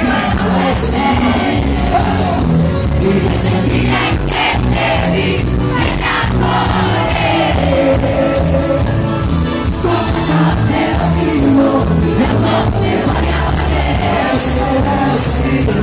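Live cuarteto band playing loudly with singing and crowd shouts over a steady dance beat.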